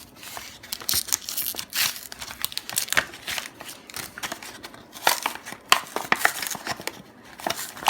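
Plastic and card packaging of a Pokémon trading card blister pack being torn and pulled open: irregular crinkling and ripping with many sharp crackles.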